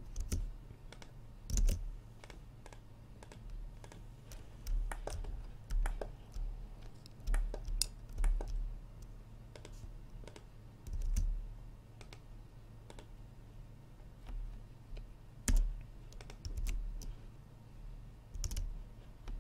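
Irregular clicks of a computer keyboard and mouse as editing shortcuts are pressed, a few strokes at a time with pauses between, some landing with a dull low thud.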